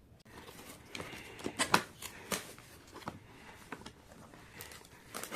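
Packaging being handled and opened by hand: irregular rustles and sharp clicks and crackles, with the loudest snap a little under two seconds in.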